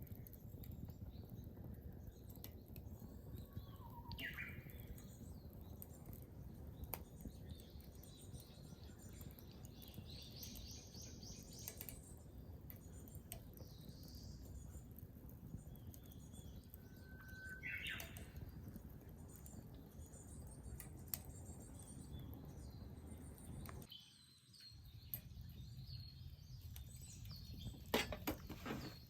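Birds chirping a few times over a faint, steady low rumble, including one quick trill; a few sharp crackles come near the end.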